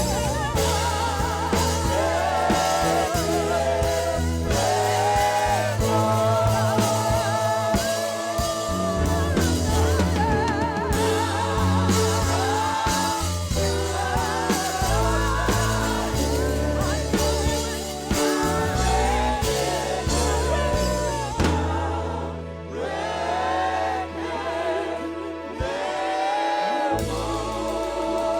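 Live gospel praise-and-worship music: a singer's wavering, drawn-out vocal lines over a band with a low bass line. The bass drops out for a few seconds past the middle and returns near the end.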